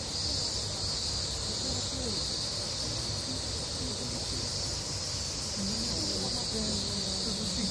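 Steady, unbroken chorus of cicadas, a high shrill hiss, with a faint murmur of distant voices underneath.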